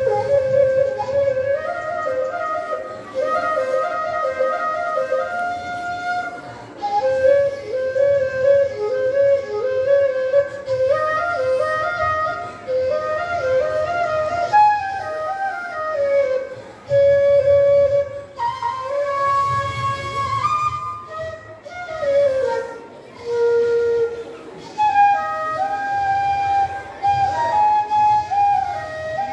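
Side-blown flute playing a solo melody into a microphone, one held note at a time, with short breaths between phrases.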